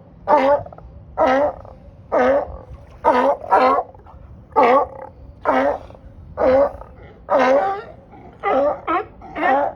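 California sea lions barking over and over: a dozen loud, hoarse barks, about one a second, with a couple of quick doubles near the end.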